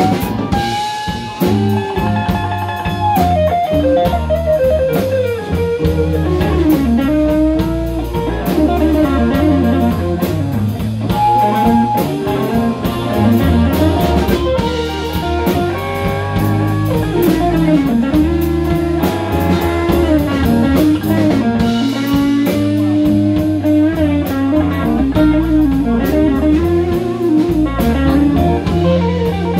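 Live electric blues band playing: electric guitars, bass and drum kit with a steady beat. A harmonica is played into a vocal mic, and over the band a lead line bends up and down.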